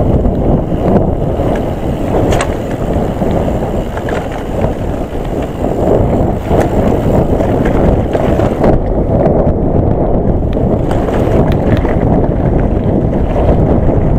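Wind buffeting the microphone while a Nukeproof Mega mountain bike rolls down a rough, stony track, its tyres rumbling and frame rattling, with a few sharp clicks and knocks from stones and the bike.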